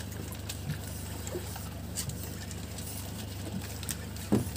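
Low steady hum of a fishing boat's engine running, with scattered light knocks and a short, louder thump about four seconds in.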